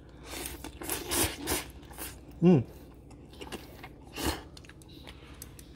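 A person slurping and chewing instant ramen noodles: several quick slurps in the first two seconds, a short hummed "mm" about halfway through, and another slurp shortly after.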